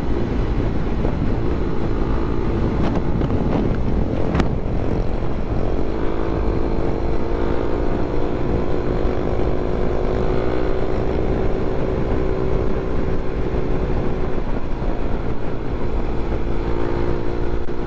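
Suzuki Raider 150 Fi's single-cylinder four-stroke engine running at steady cruising speed, its hum drifting slowly in pitch as the throttle shifts, under a constant rush of wind and road noise. A brief sharp click about four seconds in.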